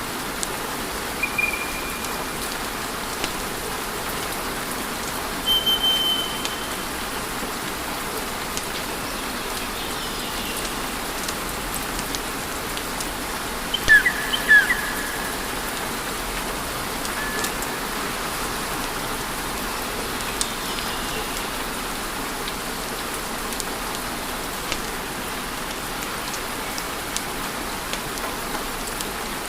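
Wood fire burning with a steady hiss and many small crackles. A few brief high whistling chirps come through: one near the start, one about six seconds in, and a louder pair about halfway.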